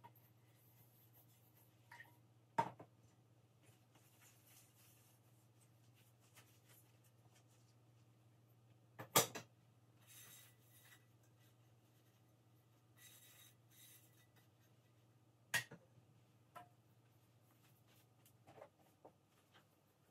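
Quiet kitchen cleaning sounds: a cloth rubbing and wiping over a surface, with a few sharp knocks of items being set down, the loudest about nine seconds in. A steady low hum runs underneath.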